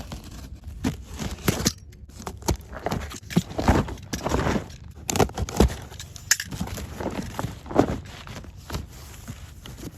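A cardboard box being opened by hand: irregular tearing, scraping and rustling of cardboard and paper, with scattered sharp clicks.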